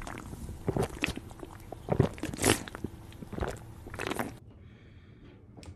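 A person gulping a drink from a plastic bottle: an irregular run of swallows and small clicks that stops a little after four seconds in.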